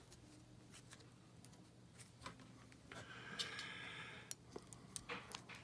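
Quiet handling of a freshly soldered connector and battery lead: a few light clicks, and about three seconds in a faint scratchy sound lasting a second or two, which fits tape being peeled off the lead.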